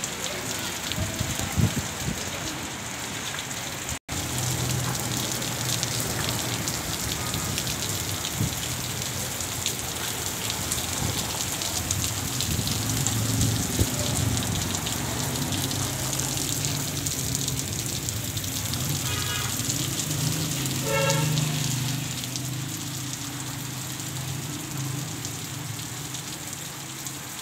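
Heavy rain falling, a steady hiss full of fine drop strikes. The sound drops out briefly about four seconds in, and after that a low steady hum runs under the rain. Two short pitched sounds stand out near the end.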